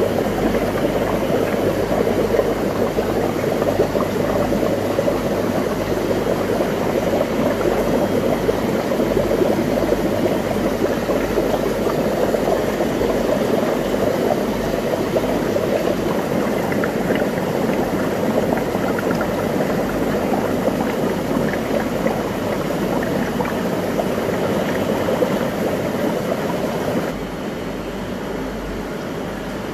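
Steady bubbling and running water from aquarium filtration and aeration, heard close to the tank; it drops a little in level near the end.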